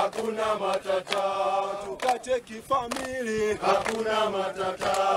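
A group of men, the mountain porters and guides, singing a chant together, several voices holding long notes and moving in pitch together.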